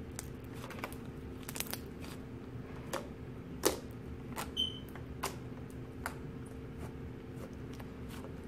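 Homemade clear slime being kneaded and pressed against a wooden tabletop by hand, giving irregular sticky clicks and pops. A brief high squeak comes about halfway through.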